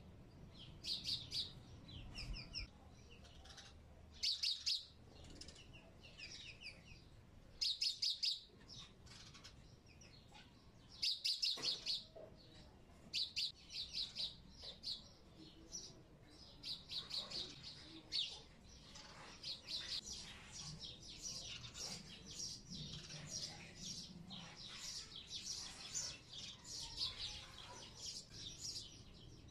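Small birds chirping in short, quick trills, scattered at first and nearly continuous through the second half.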